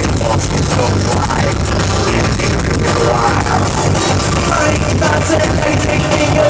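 Electro-industrial band playing live, loud and dense, heard through a poor-quality audience recording.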